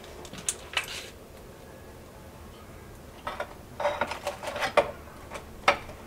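Clicking and rattling of a plastic water bottle and a wire bucket handle being handled and hung up, in scattered clusters of short clicks; the sharpest click comes near the end.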